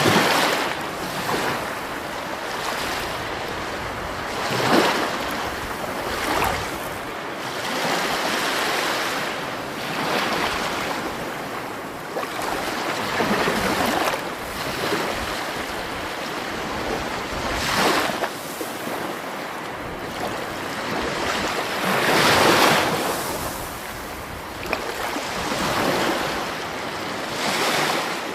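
Rushing water: a continuous noise that swells and eases every few seconds, with stronger surges now and then.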